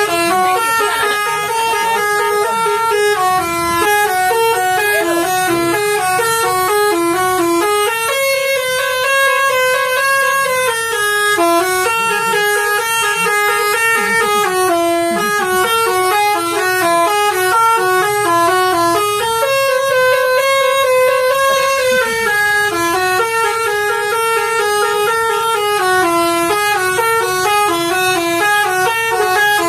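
Telolet bus horn playing a multi-note melody in quick stepped tones, the same tune repeating about every eleven seconds.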